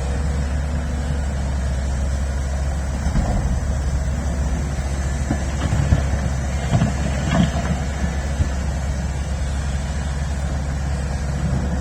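Large excavator's diesel engine running steadily with a deep drone, with a few knocks and clanks from the machine at work around the middle.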